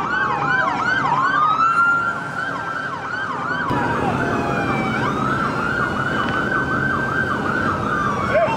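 Several police car sirens sounding at once: a fast yelp, about four sweeps a second, overlapping a slower rising and falling wail, over traffic rumble.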